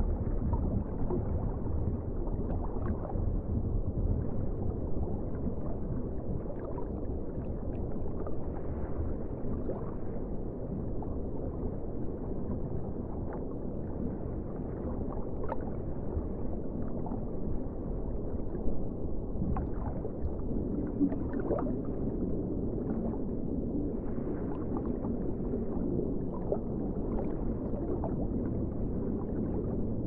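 Deep-sea underwater ambience: a steady, muffled low rumble of moving water, with faint short pops scattered through it and a louder one about two-thirds of the way in.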